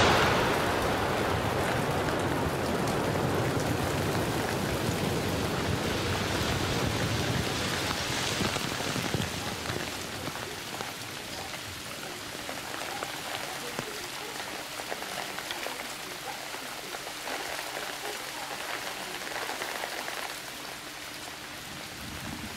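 Hailstorm: hailstones falling steadily, heaviest at first and easing a little about ten seconds in.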